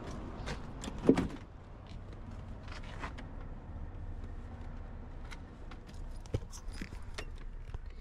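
Driver's door of an old pickup truck unlatched and opened, with a louder knock about a second in, then keys jangling and scattered small clicks and rattles as someone gets into the cab.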